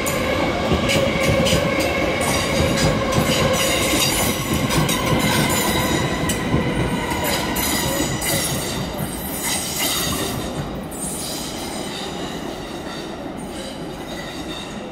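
London Midland Class 350 Desiro electric multiple unit running past over station pointwork: a steady whine with wheels clicking over rail joints and points. It fades over the last few seconds as the train draws away.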